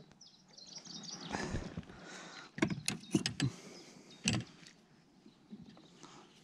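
Handling noise as a perch is lifted aboard an inflatable boat on a spinning rod and gripped by hand: quiet rustling, then a cluster of sharp knocks and clicks from about two and a half to three and a half seconds in, and one more a little after four seconds.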